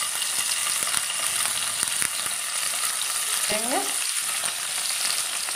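Paneer cubes sizzling in hot oil in a frying pan as more pieces are laid in: a steady hiss with faint ticks from the pieces going in.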